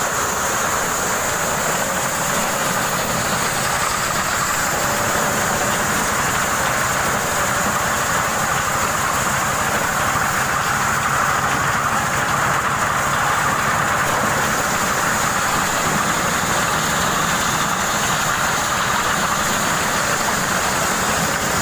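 Engine-driven corn sheller running at a steady speed while it shells unhusked ears, making an even, unbroken machine noise.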